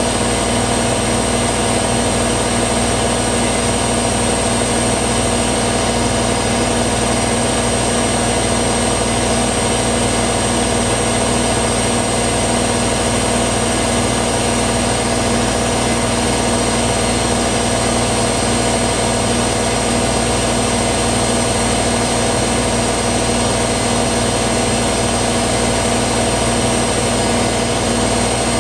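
Hoover WDYNS654D washer dryer running at a steady pace, a constant motor hum with a thin high whine over an even rushing noise.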